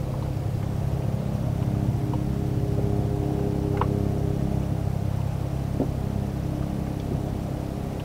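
Boat engine running at a steady low hum, swelling slightly in the middle, with two faint short squeaks about four and six seconds in.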